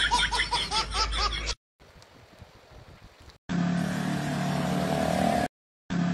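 A baby laughing in repeated bursts for about a second and a half, then a short hush. After that comes the steady engine note of an auto rickshaw driving toward the listener, cut off and resumed briefly near the end.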